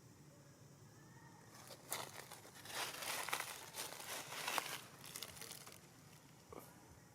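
Crinkling, rustling noise made of many small crackles, starting about two seconds in and lasting about four seconds, with one last crackle near the end.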